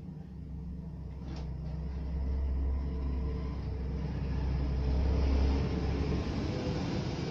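A low rumble that swells over the first couple of seconds and eases off about five and a half seconds in, over a steady low hum, with a faint click about a second and a half in.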